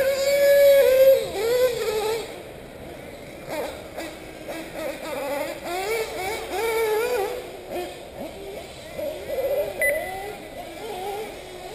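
Several 1/8-scale nitro buggy engines racing, their high whining pitch rising and falling again and again as the throttle is opened and closed through the corners.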